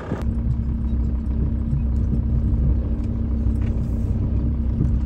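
Engine running steadily: a low rumble with a steady hum, starting abruptly just after the start.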